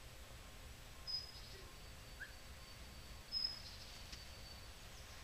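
Thin, high-pitched bird calls: a short one about a second in and another around three and a half seconds that is drawn out for over a second. Underneath is a quiet low rumble.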